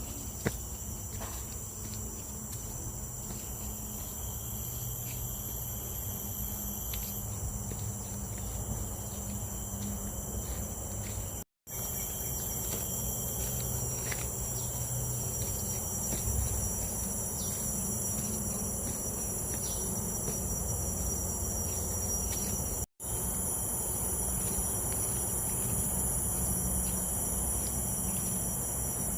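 Forest insect chorus: several steady high-pitched tones held without a break. The sound cuts out twice for a split second.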